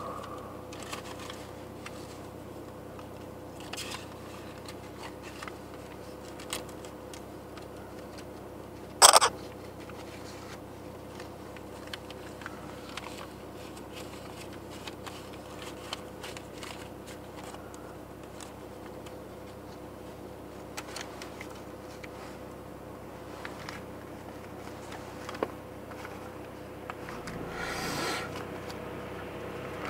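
Steady hum inside the cabin of a stopped car idling, with scattered small clicks and one sharp click about nine seconds in. A broader rush of noise swells near the end.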